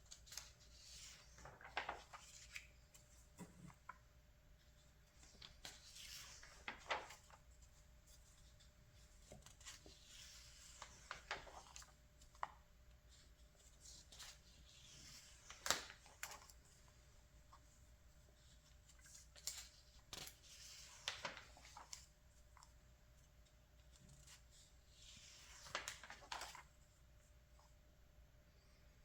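Glossy magazine pages being turned by hand: a faint swish and rustle of paper about every four to five seconds.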